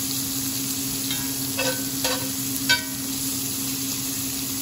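Cubes of sirloin steak searing in butter in a very hot cast iron skillet: a steady sizzle, with a metal spatula clinking against the pan four times in the first three seconds.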